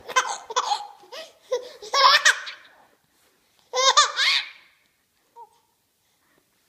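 Baby laughing in three bouts of short, pitched, breathy giggles within the first five seconds or so.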